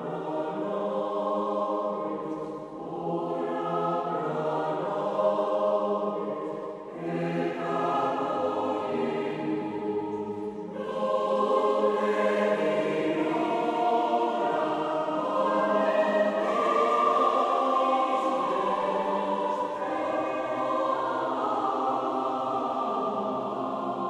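Background music: a choir singing slow, sustained chords, growing louder about halfway through.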